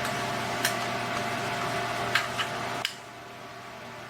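A few sharp plastic-sounding clicks of small objects being handled, over a steady background hum that drops away about three seconds in.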